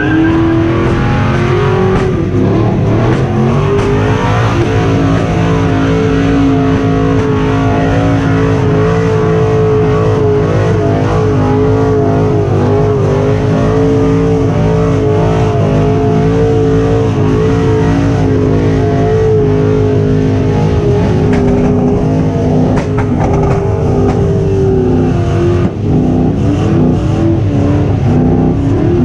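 1975 C3 Corvette's V8 held at high revs through a long burnout, its rear tyres spinning on the pavement. The revs hold steady with slight wavering, with a brief drop near the end.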